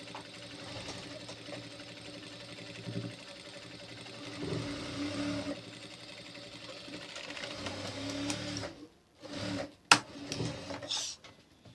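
Sewing machine running as it stitches piping onto blouse fabric, with a steady hum that stops about nine seconds in. A few short sharp clicks follow near the end.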